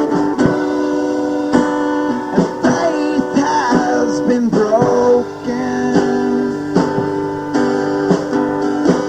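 Guitar playing an instrumental passage: plucked, ringing chords with single notes that bend in pitch about halfway through.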